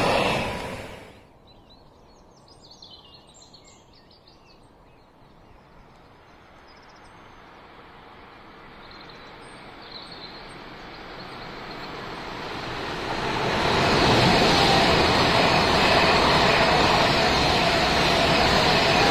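The noise of a departing train dies away in the first second, leaving faint bird chirps. Then a high-speed passenger train on the overhead-electrified main line is heard approaching, its rumble growing louder over about eight seconds until it passes close by at speed with a loud, steady rush of wheels and air.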